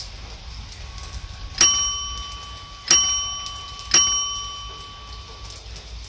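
Three bright bell dings a little over a second apart, each ringing out and fading, a notification-bell sound effect for a subscribe-button overlay. Underneath, a steady hiss of rain.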